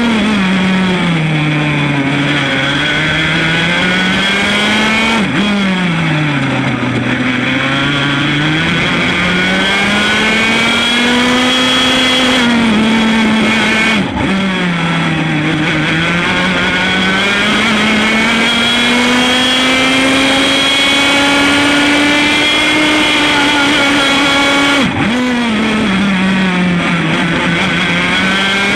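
100 cc Formula A racing kart's two-stroke engine running at high revs. Its pitch drops sharply four times as the throttle comes off and climbs steadily back up between the drops, lap driving on a circuit.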